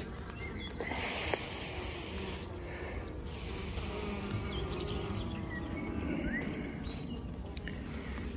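Honeybees humming steadily on a comb frame lifted out of the hive, with a short click about a second in.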